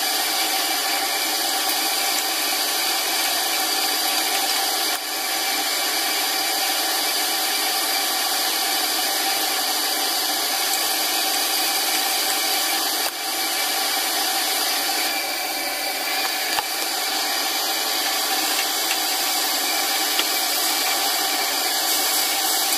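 Steady hissing rush at a stovetop while greens are sautéed in a pan and stirred with a wooden spatula, with two brief dips in level.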